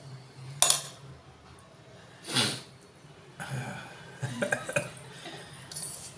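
A person hiccupping twice, sharp and sudden, about a second and a half apart, followed by a few seconds of small clinks and clicks.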